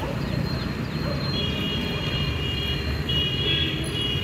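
Steady low engine rumble with short falling bird chirps in the first second. From just over a second in, a steady high-pitched tone is held, broken briefly near three seconds.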